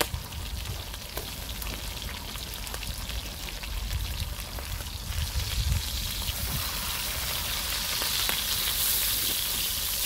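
Pork belly and neck slices sizzling on a cast-iron cauldron-lid grill as they are turned with chopsticks. The sizzle grows stronger from about halfway through.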